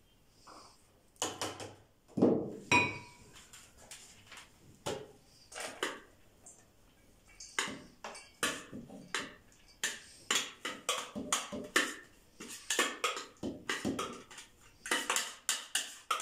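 A spoon knocking and scraping minced garlic out of a plastic food-processor bowl into a stainless-steel bowl, with a run of irregular taps and clatters, one or two a second, the loudest clunks about two seconds in.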